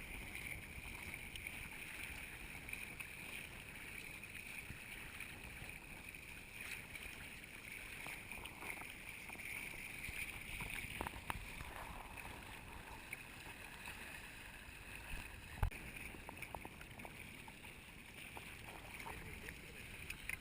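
Faint, muffled water and wind noise from a sailing folding kayak under way, heard through a GoPro's waterproof housing, with scattered light knocks and one sharper knock about three-quarters of the way in.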